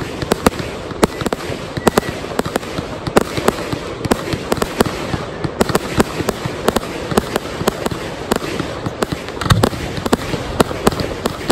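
Fireworks display: aerial shells bursting in a dense, irregular run of bangs and pops, several a second.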